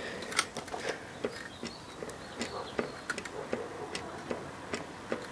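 Irregular light clicks and knocks, a few a second, from a trike's Sturmey-Archer front hub as the wheel is rocked back and forth by hand: the sign of play between the quick-release axle pin and the hub bearings.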